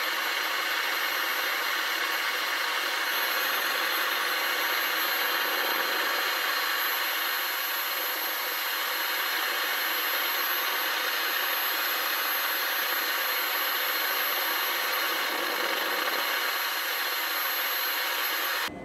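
Forced-air propane forge burner running: the blower and burning gas make a steady rushing noise with a thin high whine, cutting off abruptly near the end. The flame is sputtering, going out and relighting over and over, even with the mixing vane removed, which the owner puts down to the reduction from 2-inch to 3/4-inch pipe not letting enough fuel and air through.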